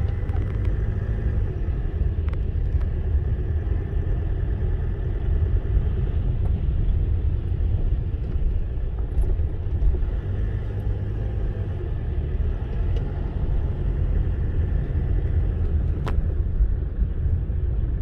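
Steady low rumble heard inside a moving car: engine and tyres on a wet road. A single sharp click sounds near the end.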